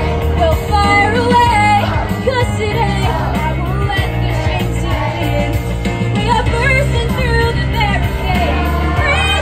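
Children's choir singing together over an instrumental accompaniment with a steady bass.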